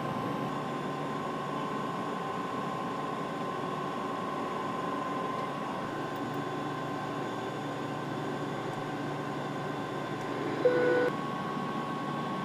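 Steady cockpit noise of an aircraft in flight: an even rush of airflow and engine hum with a faint steady whine. A short beep sounds near the end.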